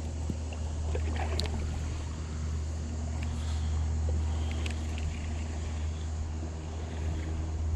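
A steady low motor hum at an even pitch, with a few faint knocks or clicks over it.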